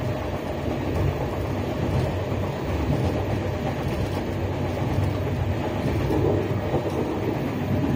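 Passenger train in motion, heard from inside the carriage: a steady low running noise.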